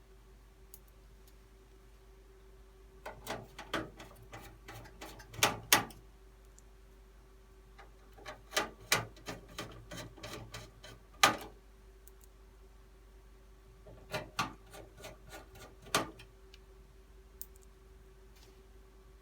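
Clicks and knocks of hardware being handled and fitted in a metal PC case, in three bursts of taps, over a faint steady hum.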